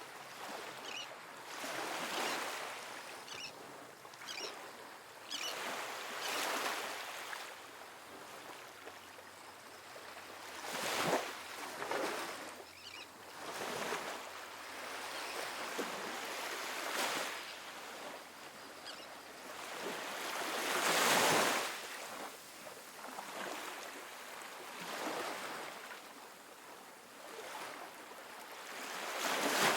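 Small ocean waves breaking and washing up a sandy beach, a soft rush of surf that swells and fades every few seconds, the biggest wash about two-thirds of the way through.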